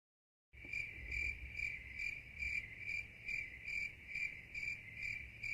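Crickets chirping in a steady, even rhythm of a little over two chirps a second. It starts and stops abruptly, like an edited-in sound effect for a quiet night.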